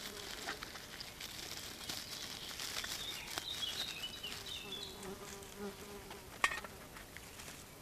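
Dry plant material crinkling and crackling as it is worked in the hands, then an insect buzzing close by for a second or two about halfway through. A single sharp click comes near the end.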